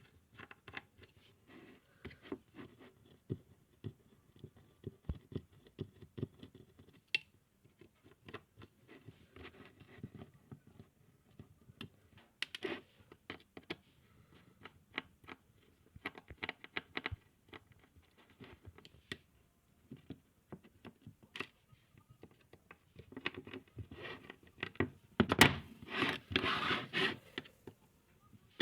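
Small screwdriver turning out the screws of a hard disk drive's metal casing: scattered light clicks and scratching, with a louder run of scraping and clatter near the end.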